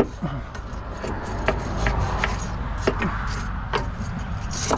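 Steel wire brush knocking and scraping against corroded suspension parts in a car's wheel well: scattered sharp knocks, with the scrubbing growing steadier and louder near the end.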